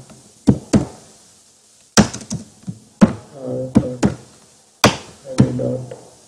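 Computer keyboard keystrokes: sharp taps at uneven intervals, sometimes several a second. Twice they are joined by a low, wordless voice murmur.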